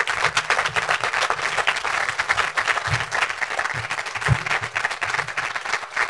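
Audience applauding, many people clapping at once. The applause turns dense right at the start and thins a little toward the end.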